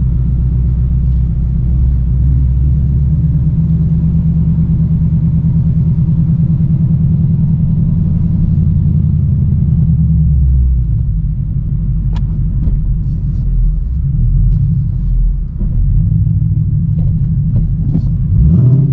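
V8 engine and exhaust rumbling steadily under way, easing off about ten seconds in, with a sharp click a couple of seconds later, then building again near the end.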